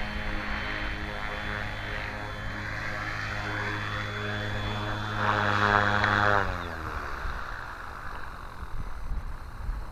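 Flywing FW450 electric RC helicopter's motor and rotor running at a steady pitch, getting louder for a moment, then spinning down with falling pitch and stopping about seven seconds in as it comes down to land.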